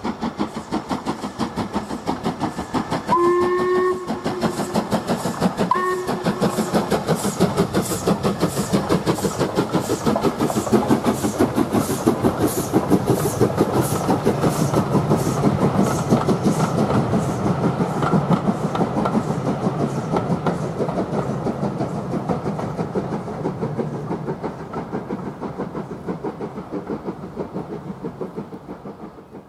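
LMS Black 5 two-cylinder 4-6-0 steam locomotive passing under steam with a train of coaches: a fast, steady rhythm of exhaust beats that grows loudest mid-way and fades near the end as it draws away. The whistle sounds once long about three seconds in and once briefly around six seconds.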